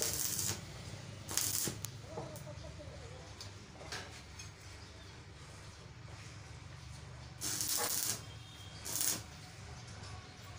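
Stick (arc) welding on a steel railing frame: four short bursts of hissing arc, two near the start and two near the end, as the electrode tacks the bars, over a steady low hum.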